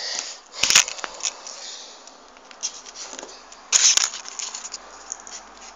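Folded paper triangle units of a 3D origami model rustling and crinkling as they are pushed into place by hand, with two sharper, louder rustles, one under a second in and one about four seconds in.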